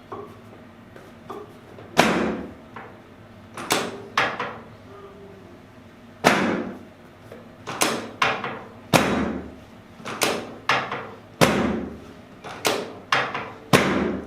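Chiropractic drop-table sections being set and dropping under the adjuster's thrusts, giving a string of loud clacking knocks at an uneven pace, about fifteen in all.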